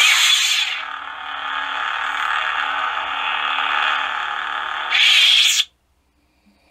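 XenoPixel V3 lightsaber sound font playing through the hilt's speaker: a loud ignition burst, a steady electric hum, then the retraction sound about five seconds in, cutting off sharply.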